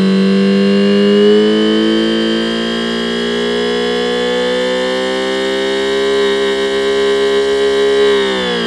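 Homemade optical engine-sound simulator imitating a Subaru EJ20 flat-four with equal-length exhaust, revved high toward 8000 rpm: a loud whine of several tones whose pitch creeps upward, then drops sharply near the end as the revs fall. At these revs its imitation power-steering-pump whine stands out.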